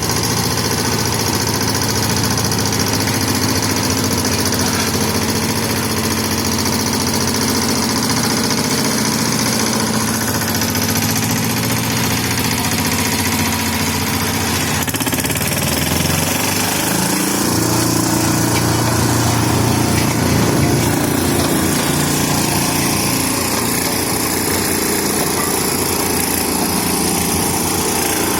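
Small vibratory road roller's engine running steadily, its note shifting about halfway through.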